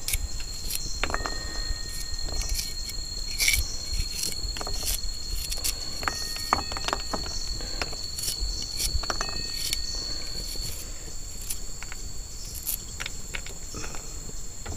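Insects chirring steadily in high tones, one of them stopping about two-thirds of the way through, with scattered sharp knife taps as garlic and shallots are cut up.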